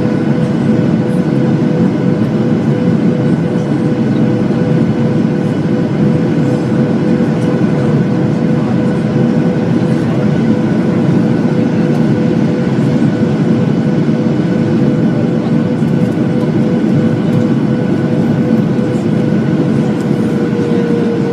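Jet airliner engines running steadily, heard inside the passenger cabin as a loud, even rush with a steady whine over it.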